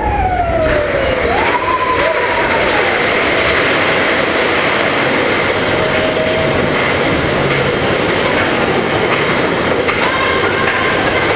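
Big Thunder Mountain Railroad mine-train roller coaster running on its track: a loud, steady rattle and rumble of the cars, with brief rising and falling squeals near the start and again near the end.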